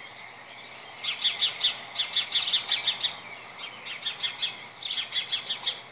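Eaglets chirping on a nest webcam, played through a laptop's speaker: rapid runs of high, short chirps, in four bursts starting about a second in.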